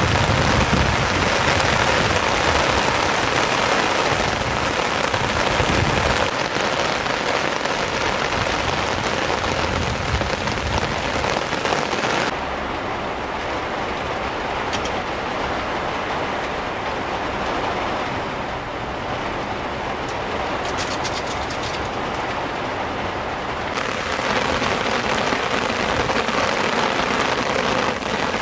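Heavy rain pouring steadily on a Land Cruiser LJ70's body and windscreen. From about twelve seconds in until shortly before the end it sounds duller, heard from inside the car's cabin, with a few light ticks.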